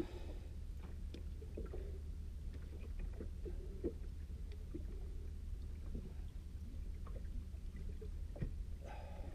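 Steady low rumble of a small boat at sea, with scattered light knocks and rubbing as fishing line and a fish are handled over the side. A short higher-pitched sound comes near the end.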